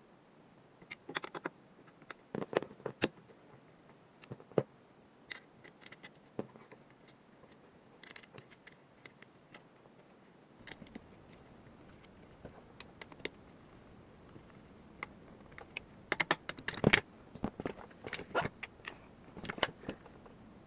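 Parts of an MWS gas blowback airsoft rifle being handled and fitted together: scattered clicks, taps and small knocks of metal and plastic parts. They come in clusters, busiest near the end.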